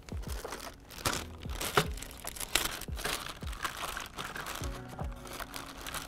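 Clear plastic parts bag crinkling and rustling in quick crackles as a hand rummages inside it, over background music with a steady beat.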